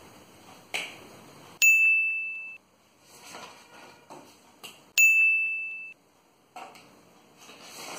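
Two identical bright ding chimes about three seconds apart, each ringing for just under a second and cutting off abruptly. Faint rustling and handling clicks lie between them.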